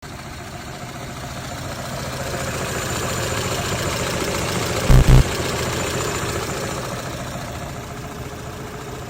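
Car engine running steadily, swelling slightly toward the middle, with a brief loud low thump about five seconds in.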